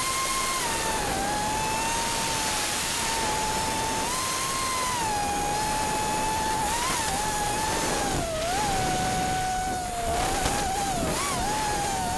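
5-inch 6S FPV quadcopter's T-Motor Blackbird V2 2800 kV brushless motors and propellers whining in flight. The high whine dips and rises in pitch as the throttle changes, most often around eight to nine seconds in and again near the end. It sits over a steady rushing hiss.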